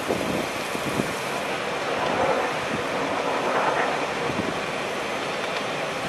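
Blizzard wind rushing steadily, swelling in gusts about two seconds in and again near four seconds.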